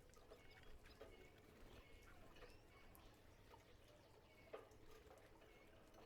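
Faint short canary chirps every second or so, with scattered soft clicks and taps.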